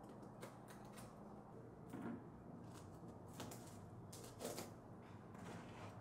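Faint rustling and light scratchy knocks of woven seagrass baskets being handled on a table, in a handful of brief bursts with the loudest about four and a half seconds in, over a low steady room hum.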